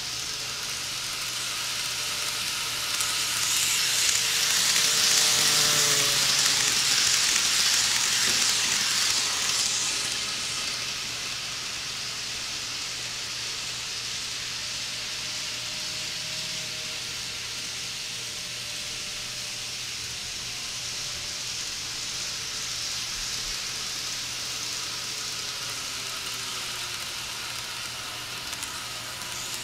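KATO N-scale E531 model commuter train running on its track: a steady rolling hiss with the motor's whine shifting faintly in pitch, a motor the owner calls pretty loud. It swells louder from about three seconds in and eases back after about ten seconds.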